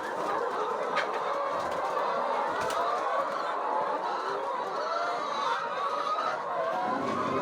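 A flock of laying hens clucking and calling, many short calls overlapping continuously.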